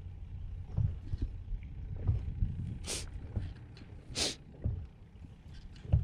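Low rumble and soft knocks from a small fishing boat on choppy water, with two short hisses near the middle.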